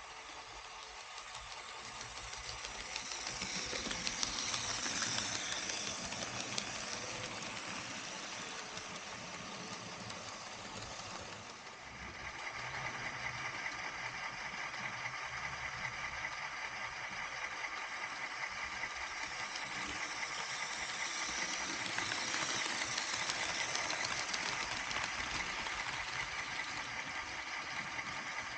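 HO scale model trains running on the layout's track: the hum of their small electric motors and the noise of their wheels on the rails, growing louder twice as trains pass close by, with an abrupt change about twelve seconds in.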